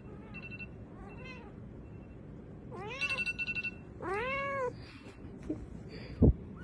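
A cat meowing: a faint meow, then two clearer ones about three and four seconds in, the last one longer. A rapid pulsing chirp sounds twice alongside, and a short thump comes near the end.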